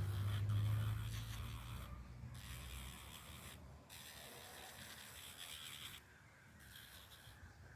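Electric pet nail grinder grinding down a dog's toenails in several short passes with brief pauses between them; a low motor hum is strongest in the first couple of seconds, then fades.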